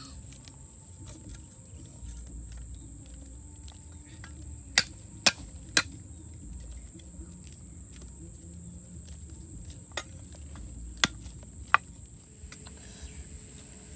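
Cleaver chopping garlic on a wooden log chopping block: three sharp chops about half a second apart near the middle, then three more single chops later, with light knocks and taps between.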